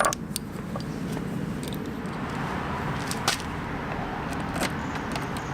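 Light clicks and taps of small metal bolts and hand tools being handled, with one sharper click about three seconds in, over a steady low hum.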